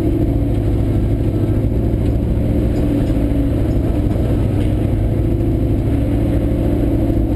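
Ford F100 pickup's engine running steadily under load, heard from inside the cab as the truck crawls in four-wheel drive over a rutted dirt trail, with a few faint knocks.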